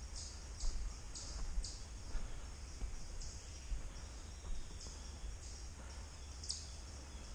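High-pitched chirping from a small forest creature, a short call repeated about twice a second, fading for a moment midway, over a low rumble.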